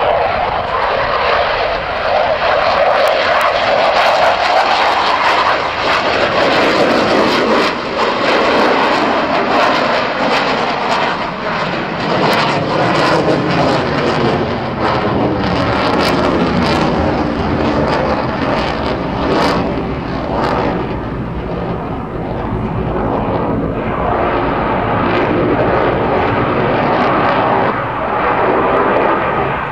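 Dassault Rafale's twin Snecma M88 jet engines, loud and continuous as the fighter flies a gear-down low pass and climbs into display manoeuvres. The sound sweeps up and down in pitch as it passes and turns, with a sharp crackle through the middle stretch.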